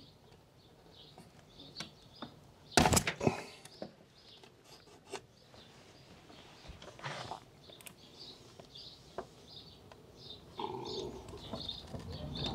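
A sharp pointed tool clicking and scraping against a chromed plastic badge as the old red colour inserts are prised out of it. The loudest clicks come in a quick cluster about three seconds in, and a steadier scraping starts near the end.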